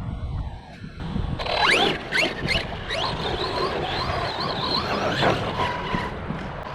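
Big Rock RC monster truck's electric motor and drivetrain whining under throttle. A few quick rising sweeps in pitch come first, then a high wavering whine at speed that drops away about six seconds in.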